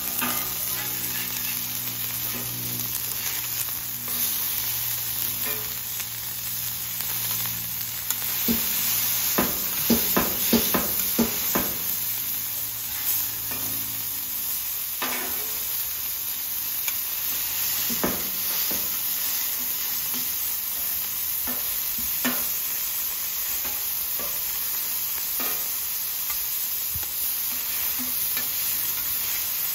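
Ground beef topped with thin-sliced onions sizzling steadily on a hot Camp Chef flat-top griddle, while steel spatulas press the burgers flat, knocking and scraping on the griddle top. There is a quick run of spatula knocks about ten seconds in, and more scattered ones later.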